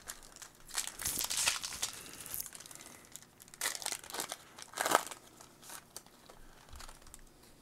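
Foil wrapper of a Topps Chrome baseball card pack crinkling and tearing as it is ripped open by hand, in irregular bursts with the sharpest crackle about five seconds in.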